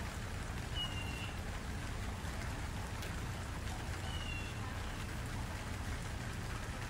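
Steady rain falling on the broad leaves of a fig tree, with two brief high bird chirps about one and four seconds in.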